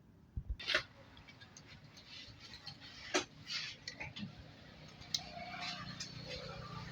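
Scattered sharp clicks and light knocks, as of small hard objects being handled: a quick cluster about half a second in, then single clicks every second or so.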